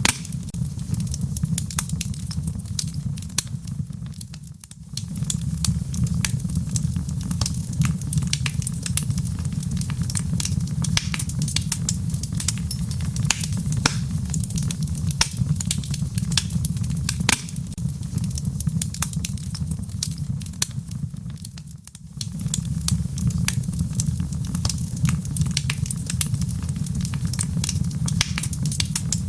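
Wood fire crackling in a fireplace: a steady low rumble of flames under many sharp pops and crackles. The sound dips briefly twice, about four seconds in and again near 22 seconds.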